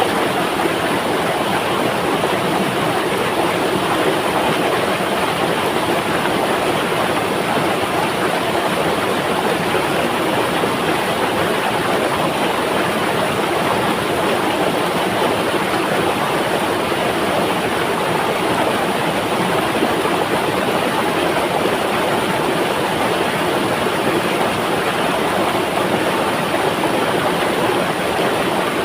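Flowing river: a steady, even rush of running water.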